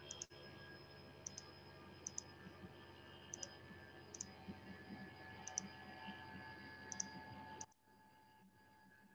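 Faint room tone with a steady hum and soft paired clicks about once a second. The hum cuts out abruptly near the end, leaving near silence.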